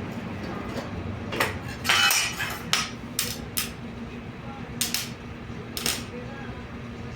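About eight sharp clicks and metal knocks from tools and parts being handled during a repair. The loudest comes about two seconds in with a brief ring, and a quick pair of clicks follows near five seconds.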